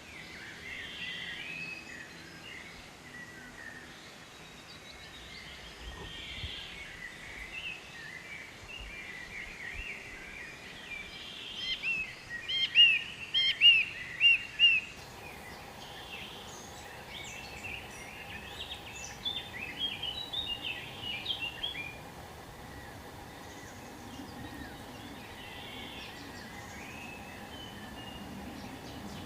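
Wild birds chirping and singing over a background hiss, with a loud run of about six sharp notes in the middle and a quick cluster of chirps a few seconds later. Partway through, the background changes and a faint steady hum joins in.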